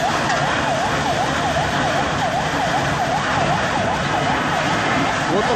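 Emergency vehicle siren in a fast yelp, rising and falling about three times a second, over a dense steady background noise.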